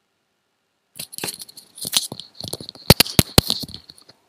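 A burst of small clicks and rattling, with three sharper, heavier knocks about three seconds in.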